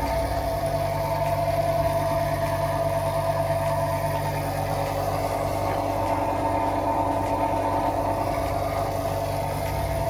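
Stainless-steel circular vibrating sieve (Dalton) running: a steady mechanical hum from its vibration motor, with a steady higher-pitched tone over it.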